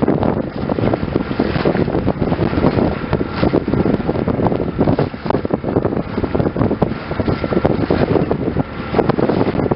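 Heavy wind buffeting the microphone at the bow of a moving wooden boat, gusting unevenly, with the bow splashing through choppy water underneath and a faint steady whine.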